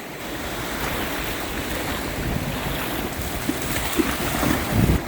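Sea waves washing in on the shore, a steady rushing hiss of surf that swells a little after the start, with wind buffeting the microphone. A few brief louder bumps sound near the end.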